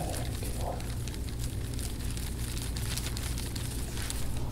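Hands kneading and pressing on a bare back, with scattered faint crackles and rubbing of skin over a steady low hum.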